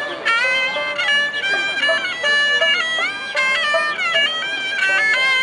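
Chiptune-style electronic music: a bright, buzzy lead melody of held notes with quick pitch slides between them.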